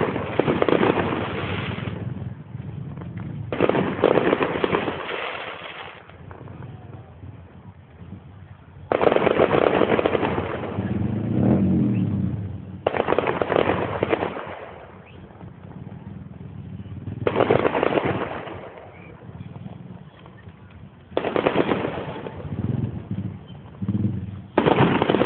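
Fireworks going off in repeated volleys of rapid crackling bangs. There are about seven volleys, each lasting one to three seconds, with quieter gaps between them.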